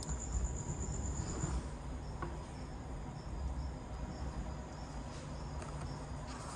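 Crickets chirping: a steady high trill that stops about a second and a half in, then a fainter pulsing chirp over a low rumble.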